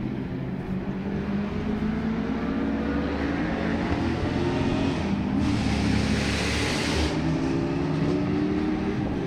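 Historic race car engines running on the circuit, their pitch climbing steadily as they accelerate, with a brief rush of noise about five seconds in.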